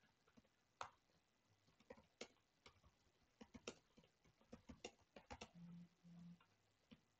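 Computer keyboard keys clicking faintly and irregularly as someone types, with two brief low hums about six seconds in.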